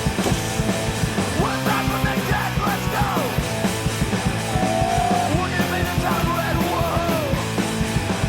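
Punk rock music with shouted vocals over driving guitars and drums.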